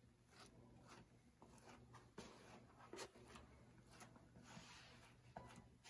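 Faint, irregular scraping strokes of a spreader laying long-strand fiberglass body filler onto a fiberglass truck fender.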